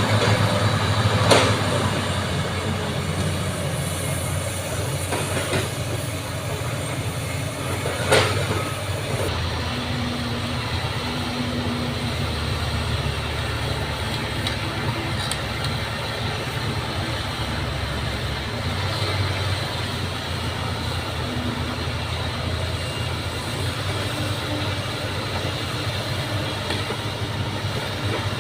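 Bulldozer's diesel engine running steadily under load, a continuous low drone, with two sharp metallic clanks, about a second in and about eight seconds in.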